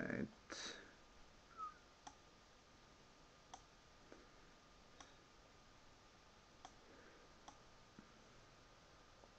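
Faint computer mouse clicks, a handful spread irregularly about a second or so apart, as mixer faders are set on a laptop; a brief noise comes just after the start, and a faint steady high tone sits underneath.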